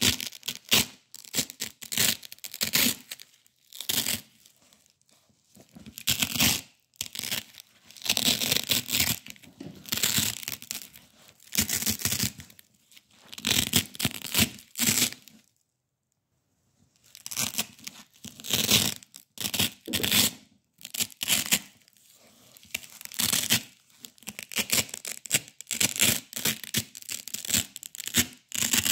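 Black hook-and-loop (Velcro) tape peeled apart by hand over and over: a run of crunchy ripping tears, some short and some drawn out for a second or more, with a brief silent pause about halfway through.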